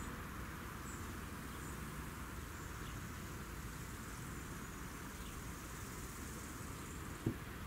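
Faint outdoor countryside ambience: a steady low rumble and hiss with a few faint high chirps, and one short sharp thump near the end.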